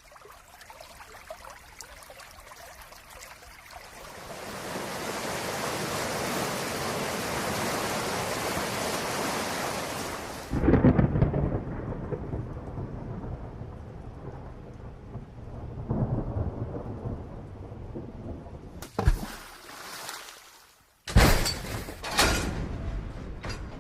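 Thunderstorm sound effect: rain builds from a light patter to a steady downpour, then a loud thunderclap breaks about ten seconds in and rolls on as low rumbling, with a second rumble of thunder a few seconds later. Near the end come a sharp click and a couple of loud, sudden crashing noises.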